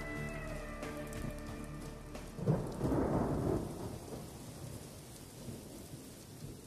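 The last notes of music die away. About two and a half seconds in, a low rolling rumble swells up and sinks into a steady hiss that slowly fades out.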